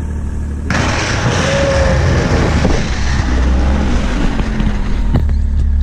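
Ski-Doo Skandic 900 ACE snowmobile, its three-cylinder four-stroke engine idling, then pulling away under a second in. A loud, steady rushing noise joins the engine as it runs on at speed.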